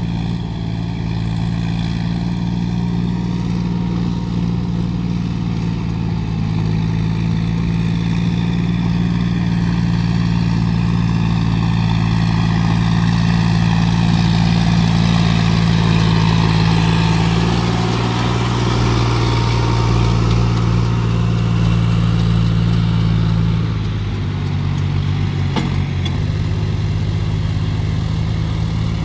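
John Deere tractor's diesel engine running steadily under load while pulling a rotary tiller through wet field soil. It grows louder as the tractor passes close about halfway through, and the engine note shifts with a small drop in level near the end.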